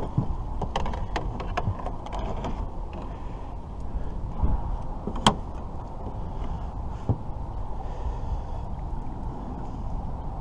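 Landing net and fishing gear knocking and clicking against the boat's side while a netted catfish is handled: several quick clicks and knocks at first, then a single sharp click about five seconds in and another near seven seconds, over a steady low rumble.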